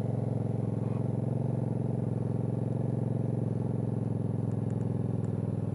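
Hyosung GV250 Aquila's V-twin engine running at steady low revs while the motorcycle is ridden slowly through a tight half-lock turn.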